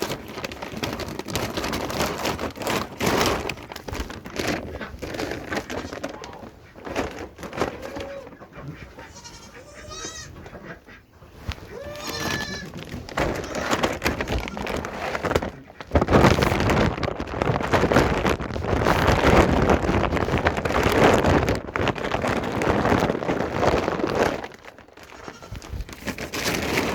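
Goats bleating a few times, with short high wavering calls about nine and twelve seconds in. About sixteen seconds in, a loud rustling noise starts and lasts some eight seconds.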